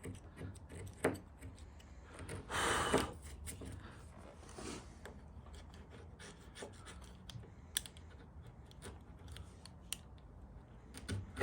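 Sharp wood chisel paring and scraping wood out of a door hinge mortise: a few short scrapes, the longest about half a second around three seconds in, with scattered light clicks and taps.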